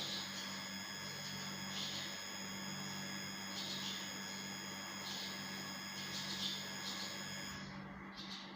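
Barn swallow chicks giving short chirps every second or so, over a steady high-pitched tone that stops near the end.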